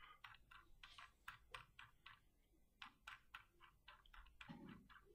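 Faint, irregular clicking of computer keys or buttons, about three or four clicks a second, as presentation slides are paged back one after another.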